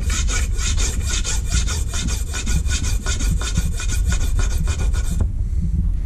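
A smooth flat file rasping across the side of a wooden model saw tooth in rapid, even strokes, stopping about five seconds in.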